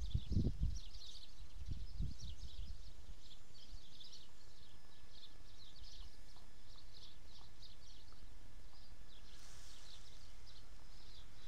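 Small songbirds chirping and twittering, a steady stream of short high notes. Low rumbling bumps in the first couple of seconds, like wind or handling on the microphone.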